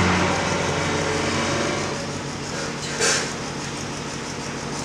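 Steady low machine hum, louder in the first two seconds, with a brief hiss about three seconds in.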